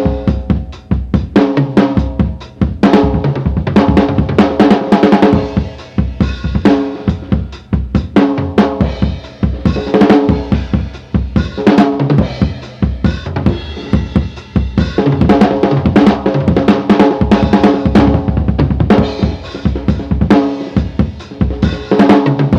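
Tama Imperialstar drum kit played in a steady beat of kick, snare and cymbals, heard as recorded through close mics and a small mixer onto a mono handheld cassette recorder, with the top end cut off and dull. The cymbals sit low in the mix because the overhead mic's level was set a little low.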